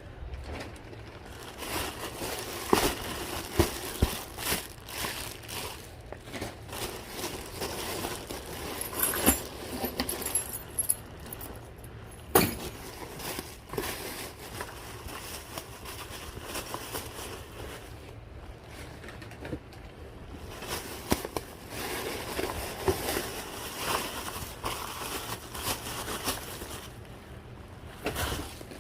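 Rummaging through a storage unit's contents by hand: rustling and crinkling of handled items, with scattered clicks and knocks.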